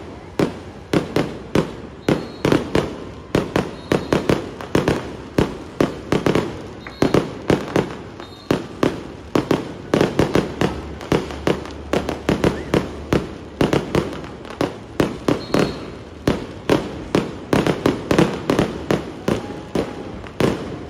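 Aerial fireworks bursting close overhead in a rapid, irregular string of sharp bangs, about two or three a second, with a few brief whistles mixed in.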